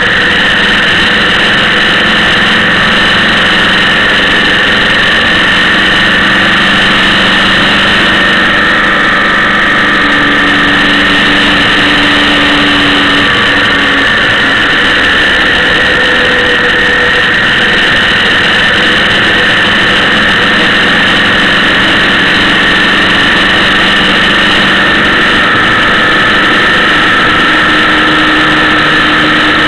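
Steady engine drone and wind rush from a vehicle travelling at an even cruising speed; the engine note shifts slightly around nine seconds in.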